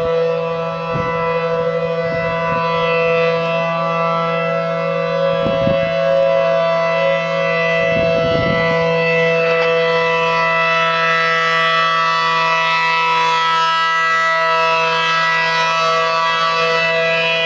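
ACA P-10 outdoor warning siren sounding a loud, steady tone that holds its pitch.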